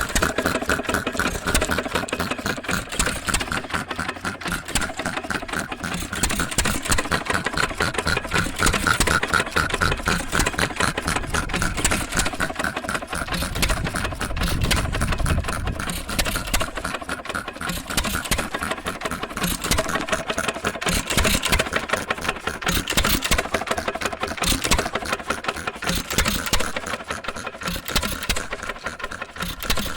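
1916 Associated 2-1/4 HP hit-and-miss engine with its air compressor unit running, a steady, rapid mechanical clatter of clicks.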